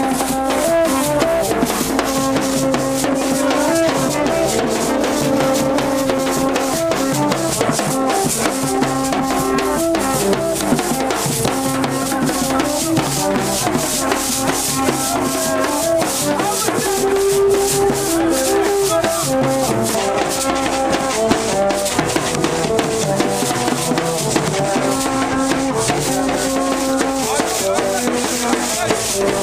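Haitian street band playing: hand drums beaten by hand and rattling shakers keep a dense, steady beat, while blown tube horns sound held notes that step between a few pitches in a repeating pattern.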